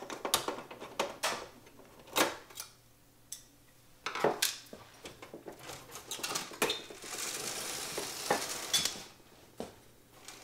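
Metal clicks and clinks of a screwdriver, loose screws and a steel cover plate against a cassette deck's sheet-metal chassis, as two screws are taken out. A few sharp clicks come in quick succession, then more after a short pause. About seven seconds in there are two seconds of scraping.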